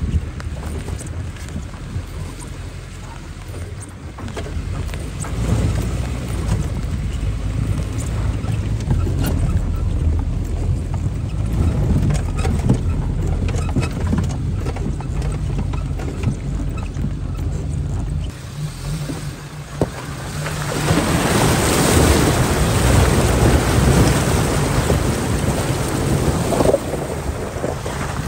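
Off-road buggy's engine running as it drives over rough, wet ground: a low steady rumble with scattered knocks and rattles. About two-thirds of the way through the engine sound falls away, and a loud rushing hiss of wind and rain takes over.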